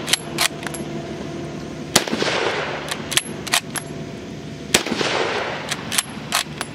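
Lee Enfield No.1 Mk III SMLE bolt-action rifle firing .303 British: two shots about three seconds apart, each ringing out with a long echo. Between and after the shots come quick groups of sharp metallic clacks as the bolt is worked to eject and chamber the next round.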